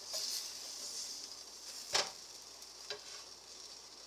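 Butter sizzling in a frying pan under a grilled cheese sandwich, a steady high hiss. Two light clicks break it, about two and three seconds in.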